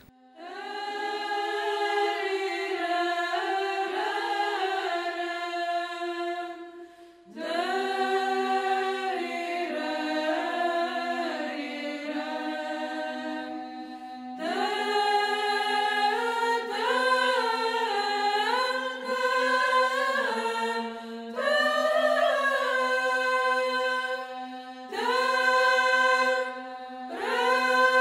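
Unaccompanied choir chanting in slow, sustained phrases over a steady held low note, with brief pauses between phrases.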